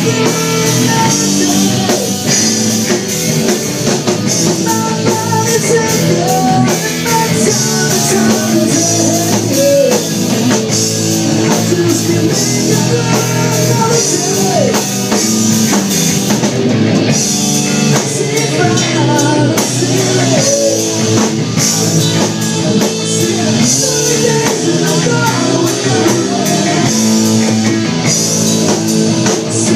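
Live rock band playing loud and without a break: electric guitar, electric bass, keyboard and drum kit.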